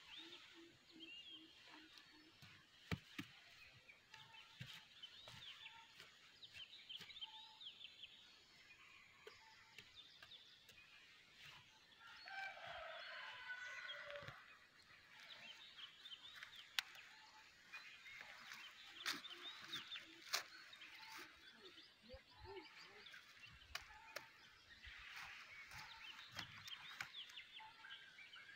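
Faint outdoor quiet with small birds chirping throughout and a denser burst of calls about twelve seconds in. A few sharp knocks come from a knife blade digging into dry soil.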